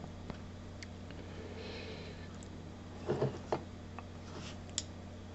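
Faint clicks and light knocks from a handheld nanoVNA being turned over and handled, with a short cluster of louder knocks about three seconds in, over a steady low hum.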